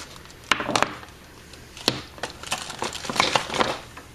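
Objects being handled and moved about: a string of irregular knocks, clicks and rustles, thickest in the second half.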